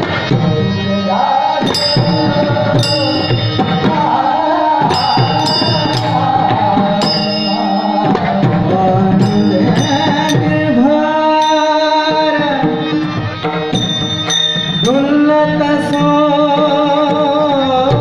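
Marathi Warkari devotional song: a male voice sings a melodic tune, holding long notes with slides between them, over drum and percussion strikes keeping the beat.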